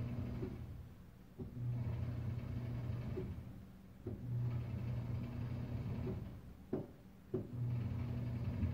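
Damark B44 sleeve wrapper's discharge conveyor motor being jogged: a low electric hum starts and stops repeatedly in runs of one to two seconds, with clicks at several of the starts and stops as the button is pressed and released.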